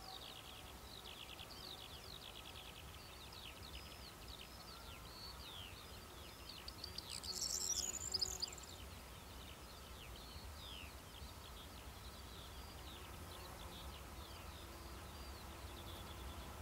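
Birds singing in open countryside, many quick falling chirps, with a louder burst of high calls about seven to eight seconds in. A faint low rumble lies underneath and grows slightly near the end.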